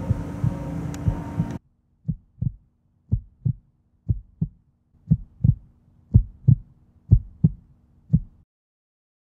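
Heartbeat sound effect: paired lub-dub thumps about once a second over a faint low drone. The beats start about two seconds in, after a denser rumbling background cuts off suddenly, and stop about a second before the end.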